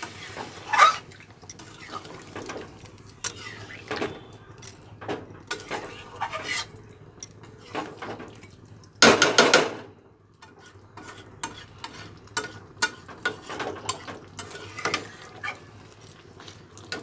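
Metal spatula scraping and clinking against an aluminium kadai while stirring a chicken and potato curry, in irregular strokes. About nine seconds in there is a louder rush of noise lasting about a second.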